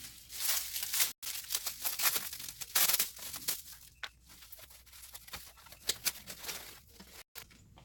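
Crinkling, rustling and tearing of plastic wrapping and tape as rack parts are handled, with light knocks. The sound cuts out completely for a moment twice.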